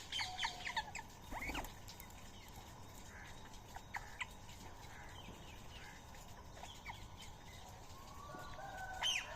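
Birds calling: a quick run of sharp, high calls at the start, then scattered short chirps, and a louder call near the end.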